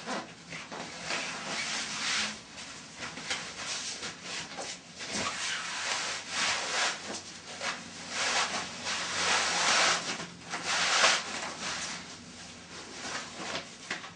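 Shiny synthetic swimsuit fabric rustling and swishing in irregular bursts as a flotation swimsuit with sewn-in foam floats is pulled on over the legs and body. The swishes are loudest a little after halfway.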